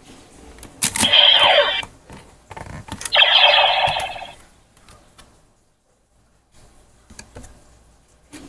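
A white Kamen Rider Decadriver toy belt (a bootleg CSM replica) has its side handles pulled open with a sharp click near one second in, as the buckle turns sideways. Two electronic sound effects play from the belt's speaker, the first with a falling sweep, the second about two seconds later. Small plastic clicks near the end come from a Kamen Ride card being handled at the slot.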